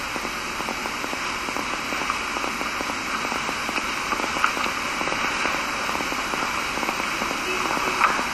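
Steady hiss with dense fine crackling: the background noise of the lecture recording during a pause in speech.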